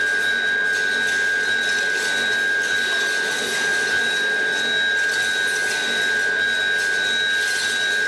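Experimental sound improvisation: a dense, steady noise drone with two held high tones running through it and no change in level.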